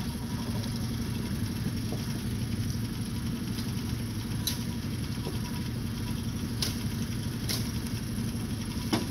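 Small outboard motor idling steadily, with a few light knocks from about halfway through.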